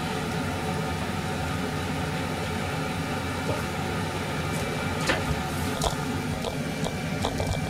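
Steady hum of a kitchen appliance, such as a range-hood fan, with a few light clicks and clinks of utensils from about five seconds in.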